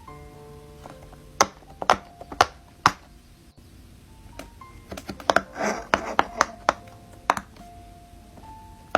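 Sharp clicks and pops from fidget toys being pressed: four about half a second apart, then a quicker cluster with a brief rustle a few seconds later. Soft background music plays underneath.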